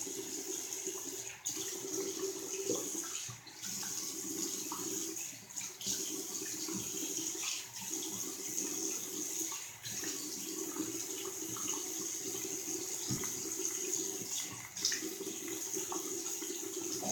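Water running from a tap into a sink in a steady stream, its sound briefly broken several times.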